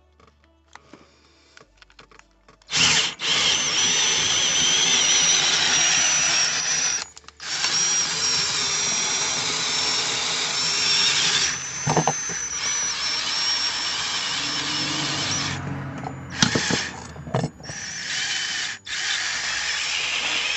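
Cordless drill boring slowly through a sheet-metal plate, running with a steady high whine. Once it starts it runs in long stretches with a brief stop, then in short stop-start bursts near the end.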